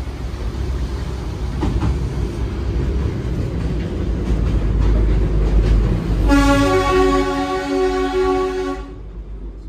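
Darjeeling Himalayan Railway toy train running with a low rumble and a few clacks. About six seconds in, its horn sounds one steady held note for about two and a half seconds and cuts off.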